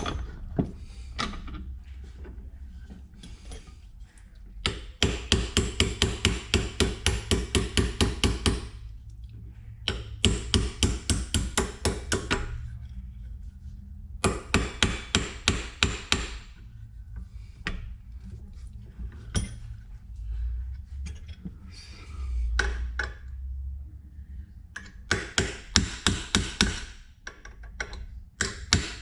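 Quick, light hammer taps, about four or five a second, in several runs of a few seconds each. They come as the lid is being tapped onto the oil filler cap.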